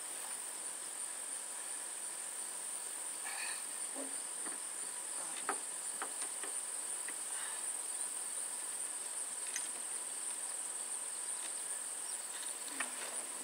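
Steady, high-pitched trilling of insects in the summer grass, unbroken throughout. A few light clicks and knocks come from gear being handled in the aluminium boat.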